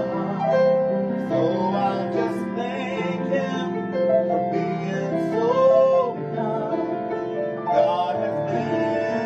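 A man singing a slow gospel song to a Kawai upright piano accompaniment, holding and bending long notes over steady piano chords.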